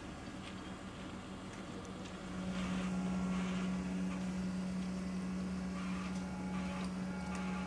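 Road-rail excavators' diesel engines and hydraulics running with a steady hum that grows louder about two seconds in, as they work a track panel hanging on chains, with scattered light metallic clinks.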